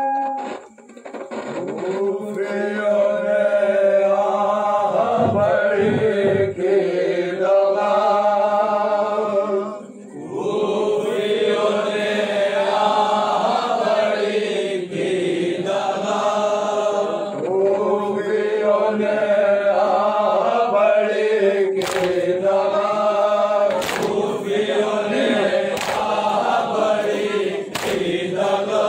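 A group of men chanting an Urdu noha (mourning lament) in unison to a slow, swinging melody, with a brief pause about ten seconds in. From about two-thirds of the way through, sharp slaps land roughly every two seconds: chest-beating (matam) in time with the chant.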